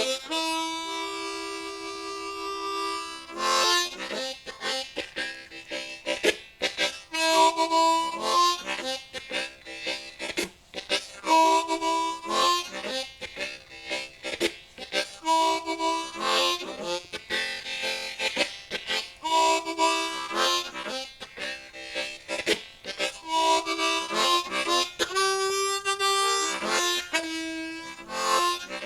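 Low F diatonic harmonica (Hohner Marine Band Crossover) played unaccompanied as a 12-bar blues shuffle in second position, key of C. Long held chords alternate with short rhythmic chord stabs, and the phrase repeats every few seconds.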